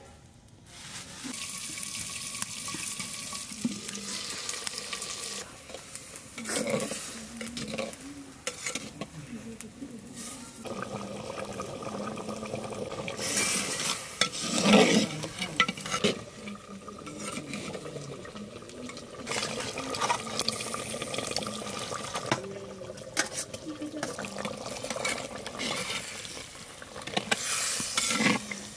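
Food sizzling in a clay pot while a long spatula stirs and scrapes through it, with irregular strokes against the pot, loudest about halfway through.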